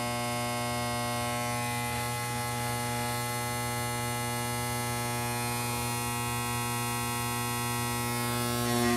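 GE Power Flood 1000 mercury vapor floodlight humming and buzzing loudly and steadily as the lamp warms up, swelling briefly near the end. The buzz is the vibration of a loose piece of the fixture, which the owner quiets by pressing on it or tightening its screws.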